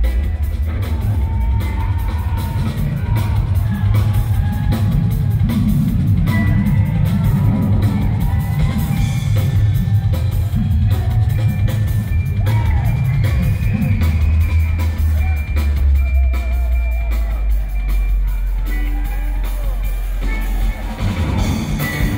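Live electric bass guitar solo over a rock drum kit, heard from the audience in a theatre. Busy low bass lines give way about two-thirds of the way in to long held low notes.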